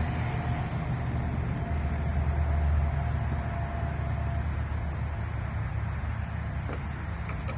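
A steady low rumble, with a faint thin steady tone over it for the first half and a couple of light clicks near the end.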